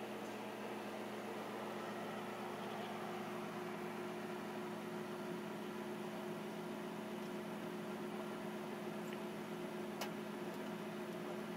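Steady electrical hum over a background hiss, with a single faint click about ten seconds in.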